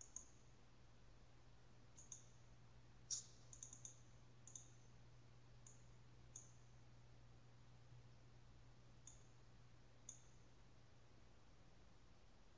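Faint computer mouse clicks, single and in quick pairs, scattered irregularly and loudest a little over three seconds in, over a faint steady low hum.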